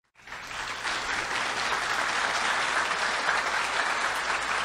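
Audience applauding. It comes in abruptly just after the start, reaches full strength within the first second and then holds steady.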